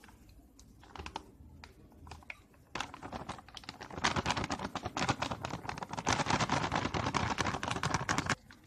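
A plastic spice packet crinkling and rustling as red chilli powder is tipped from it into a steel measuring cup. There are a few quiet handling clicks at first, then a dense, rapid crackling from about three seconds in that stops just before the end.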